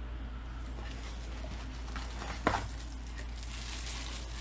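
Packaging being handled: a foam sheet lifted out of a cardboard box and a tissue-paper-wrapped dashcam taken out, with light rustling over a steady low hum. One sharp click or knock comes about two and a half seconds in, and the paper rustles more near the end.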